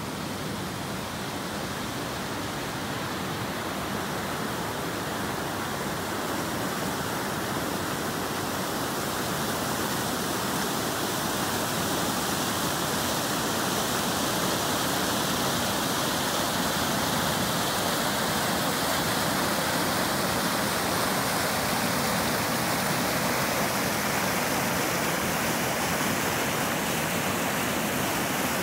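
Storm-swollen, muddy creek rushing and pouring over a flat rock crossing: a steady noise of fast water that grows gradually louder over the first half, then holds.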